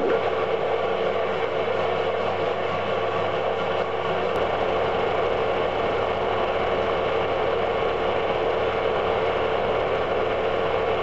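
An electric motor running steadily with a constant hum; about four seconds in, a low rumble joins it.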